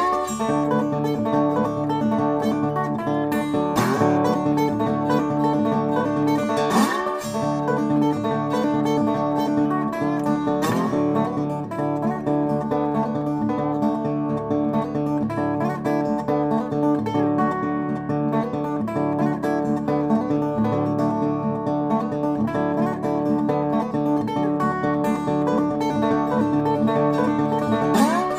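Background country-style music played on acoustic guitar, with a few notes that slide upward.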